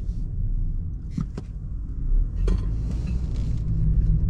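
Steady low rumble of engine and road noise inside the cabin of a 2020 BMW 330i sedan on the move, with a few short clicks near the middle.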